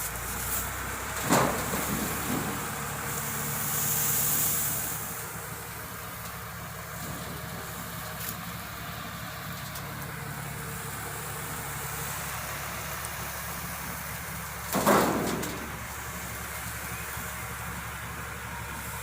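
Tractor engine running steadily while driving a straw chopper, with a hiss that rises and falls a few seconds in and two brief louder noises, one about a second in and one near the end.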